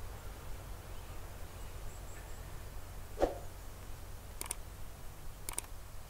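Two sharp double clicks about a second apart near the end, over a steady low rumble; a short low sound about three seconds in is the loudest moment.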